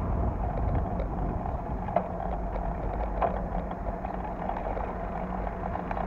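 Tram running along street rails: a steady low rumble with wind on the microphone, a sharp click about two seconds in and a brief wheel squeal a second later.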